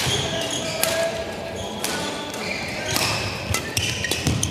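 Badminton rally: sharp racket strikes on the shuttlecock about a second apart, mixed with short high squeaks of court shoes on the hall floor.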